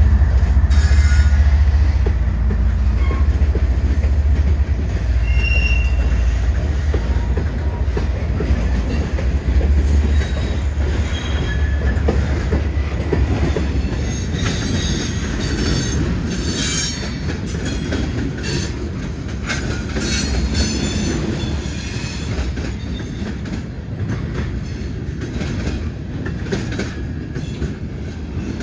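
Freight train cars rolling past: a heavy steady rumble of steel wheels on rail with scattered clicks and brief wheel squeals, growing gradually fainter through the second half.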